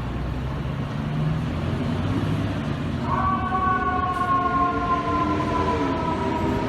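Fire truck on an emergency response: engine running, then about three seconds in a siren tone comes in and slowly falls in pitch.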